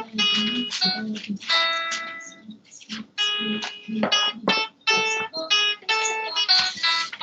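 Music: a plucked string instrument, separate notes picked one after another in a quick, uneven run.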